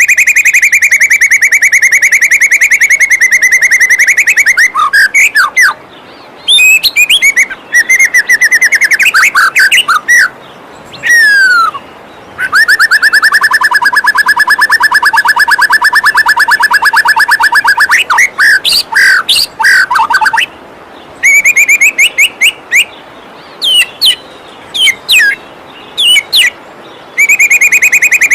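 White-rumped shama (murai batu) song from a master training track: long, very fast rattling trills held for several seconds, alternating with quick sweeping whistled notes. A steady rush of falling water runs beneath.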